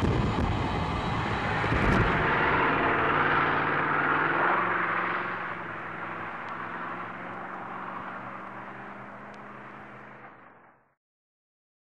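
Fireworks booming and crackling, giving way to a hissy wash with a steady low ringing tone that slowly fades and then cuts off about eleven seconds in.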